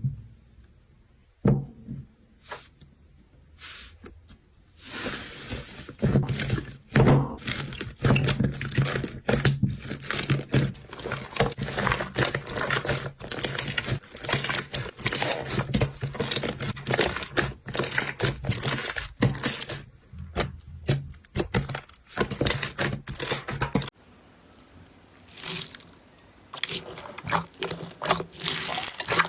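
Slime being squeezed and pressed by hand, giving rapid, irregular crackling clicks and pops. A few separate taps come first, and the crackling becomes dense about five seconds in. The sound breaks off abruptly a little before the end and then resumes.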